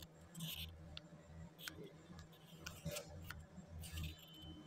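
Faint handling noises as a computer power supply and a cable plug are handled: a few light clicks and short rubs, over a faint low hum.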